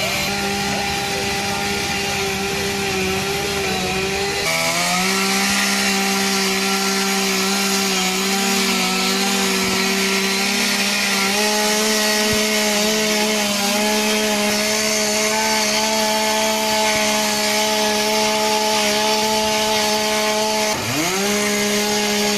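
Chainsaw engine running at high revs while cutting through wood, its pitch steady for long stretches. It drops sharply for a moment near the end and then picks back up.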